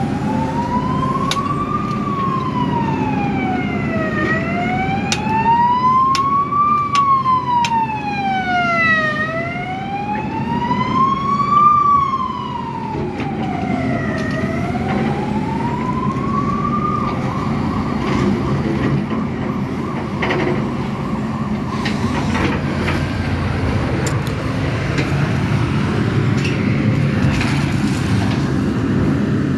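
A siren wails slowly up and down, about four rise-and-fall cycles of roughly five seconds each, and stops about seventeen seconds in. Underneath, the Sumitomo SH-300 excavator's diesel engine runs steadily as it digs.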